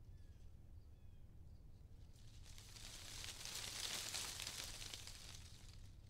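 Outdoor nature ambience: a gust of wind rustles through foliage, swelling up about halfway through and dying away near the end, over a steady low rumble. A few faint, short high bird chirps come in the first second.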